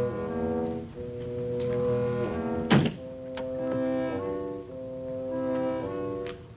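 Background music of held chords that change every second or so, with a single car-door slam about three seconds in.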